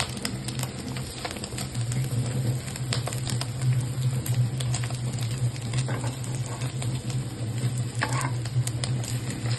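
Food frying in a pan: steady sizzling with many irregular crackles and pops, over a low steady hum.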